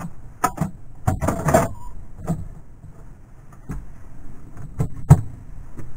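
A run of light knocks and clatters from a composting toilet's plastic seat and lid being handled, with the sharpest knock about five seconds in.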